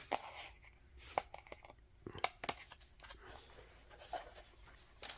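Hands handling a thick cardboard board book and lifting one of its cardboard flaps: a few faint sharp taps and soft scrapes and rustles of the stiff pages.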